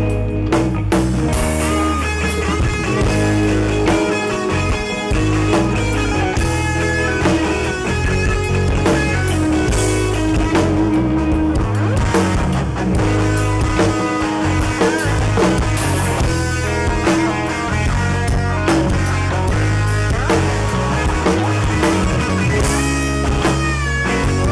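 Live rock band playing an instrumental passage with no singing: electric guitar over a drum kit and keyboards.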